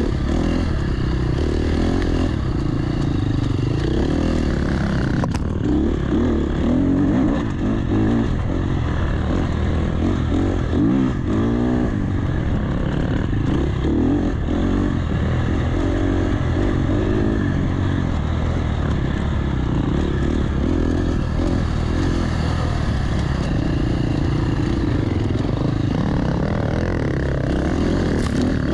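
Enduro dirt bike engine running hard, its revs rising and falling continuously as the throttle is worked, with a sharp click about five seconds in.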